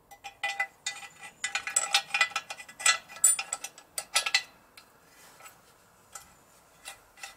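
Small metal parts clicking and clinking as the tachometer drive gear and shaft are fitted into the Yamaha XS650's aluminium engine cover beside the oil pump gear. There is a dense run of sharp clicks over the first four and a half seconds, then a few scattered ones.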